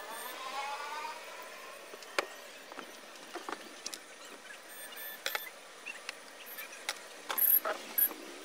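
Light clicks and knocks from a bare LCD panel's metal frame being handled on a table, with a cluster of louder knocks near the end. In the first second, a short high call rises and then falls away.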